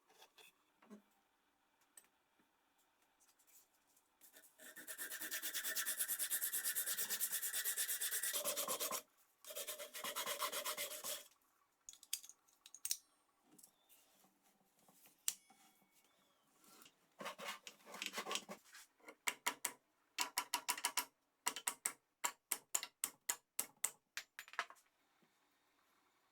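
Abrasive rust-removal work on the metal of an old wrench. It starts with two long continuous scrubbing passes, the first a few seconds long, then turns to a run of short back-and-forth rubbing strokes, about three a second, in the second half.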